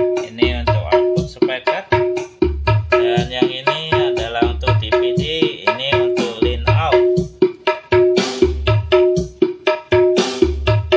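Music with drums: a low beat about every second and a half, quick percussion strikes in between, and held melody notes.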